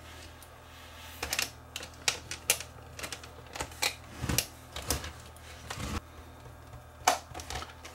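Irregular plastic clicks, taps and knocks as a JVC camcorder's housing and viewfinder are handled and fitted back together by hand, starting about a second in.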